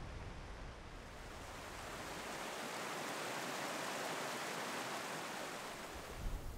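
Mountain stream rushing and splashing over rocks, swelling in over the first couple of seconds and easing off near the end.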